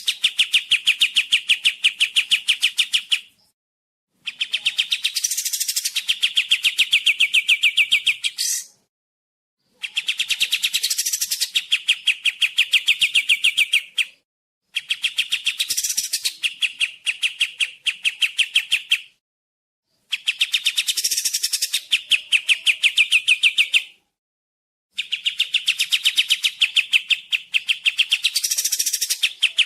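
Kapas tembak songbird singing: bouts of rapid, evenly spaced chattering notes, each a few seconds long with a brief rising and falling sweep in the middle, repeated with short pauses between them.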